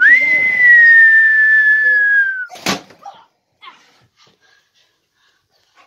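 A high whistle held for about two and a half seconds, sliding slowly down in pitch, then a single sharp bang.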